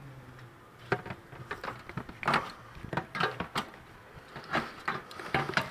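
Irregular light clicks and knocks of plastic parts being handled in a car's wheel well, about a dozen in all, with no steady rhythm.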